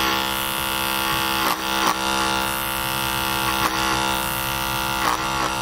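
Cordless hair clipper with a number-one guard running with a steady buzz as it cuts through thick hair, with a few brief catches in the sound as it bites in.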